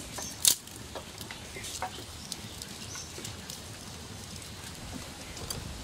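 Dry palm fronds and sticks rustling and crackling as they are pushed into the firebox of a clay mud stove, with one sharp snap about half a second in and scattered crackles after it.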